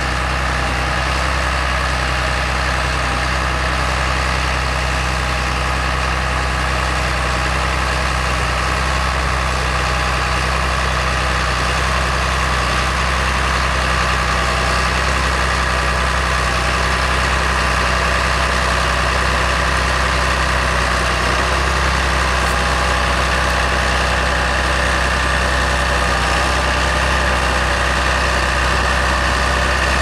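John Deere 8310 tractor's six-cylinder diesel engine running steadily as it drives a Grimme SE 150-60 twin-row potato harvester, whose machinery runs along with it. The sound is an even, unbroken drone with a few higher steady tones above it.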